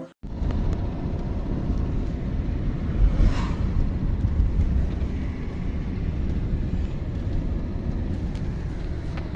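Steady low rumble of a car's engine and road noise heard from inside the cabin while driving, with a brief hiss about three seconds in.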